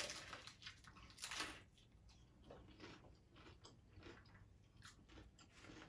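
A person biting into and chewing a crunchy hard-shell taco close to the microphone. A sharp crunch comes as the bite is taken, another about a second and a half in, then softer chewing crunches.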